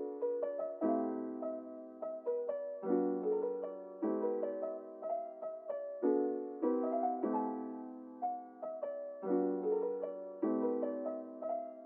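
Soft, slow piano music: gentle chords that change every second or two, with single notes picked out above them.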